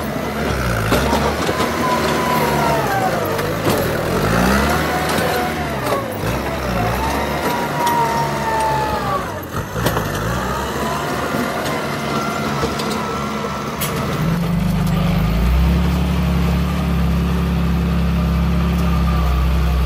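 Tractor diesel engine revving up and down under load as its front blade pushes loose rock and soil. About fourteen seconds in, this gives way to a loaded dump truck's diesel engine running at a steady low hum.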